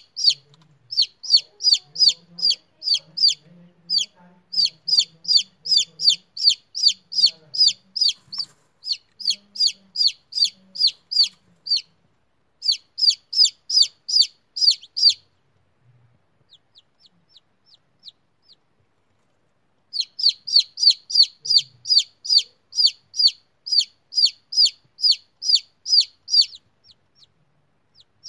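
Newly hatched chicken chick peeping: runs of short, high, falling chirps about three a second, broken by a short pause and by a stretch of fainter chirps past the middle.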